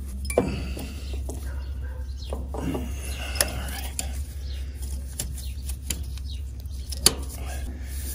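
Metal clinks, taps and scrapes of a Ford 2N tractor's front-mount distributor being fitted back onto the engine by hand, with a few sharp clicks near the start and again about seven seconds in.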